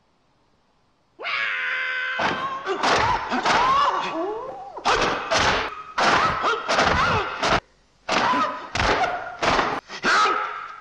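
Bruce Lee's fight cries with film punch and kick sound effects: after a moment of silence a long, high-pitched cry, then a rapid string of hard smacking hits, several a second, each with a short sharp yelp or shout, with a brief pause near the middle.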